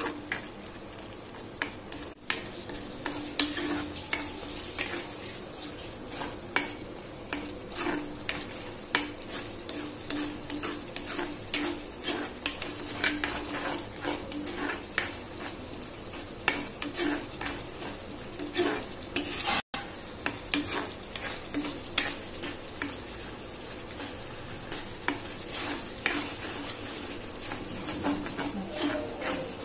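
A steel spoon stirs and scrapes thick masala paste frying in oil in a steel kadai, clinking often against the pan over a steady sizzle. The sound drops out for an instant about two-thirds of the way through.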